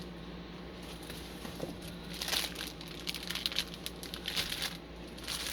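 Small plastic bags of diamond painting drills crinkling and rustling in irregular handfuls as they are sorted through by number.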